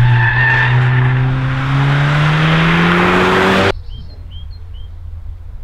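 Audi S1 quattro's turbocharged 2-litre four-cylinder with an Akrapovic exhaust, pulling in second gear with its engine note rising steadily; the sound cuts off suddenly a little over three and a half seconds in. A bird then chirps three times.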